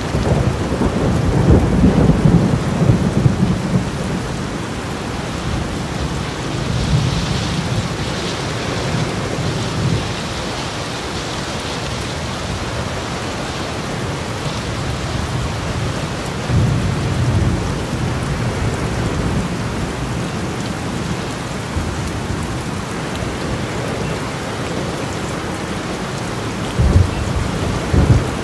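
Heavy rain pouring in a severe thunderstorm, with strong wind gusting in low rumbles. The rumbles are strongest in the first few seconds, with shorter low bursts about 17 and 27 seconds in.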